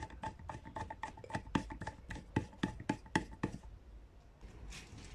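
Quick series of light clicks and ticks, about four a second, as the plastic side handle is turned by hand into its threaded hole on a Bosch angle grinder's gear head; the clicking stops about three and a half seconds in.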